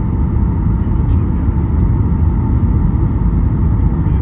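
Steady, loud low rumble with a faint steady whine above it: Boeing 737 MAX 8 jet noise during its landing.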